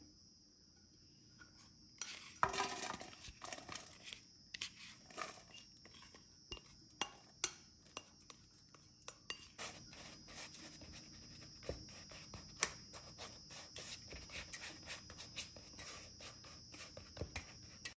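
Kitchen utensil scraping and clinking against a dish while food is mixed, a busy run of quick clicks and scrapes that starts about two seconds in.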